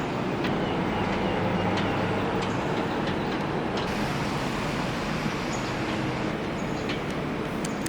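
Steady rumbling hiss of a moving train, with a few faint ticks.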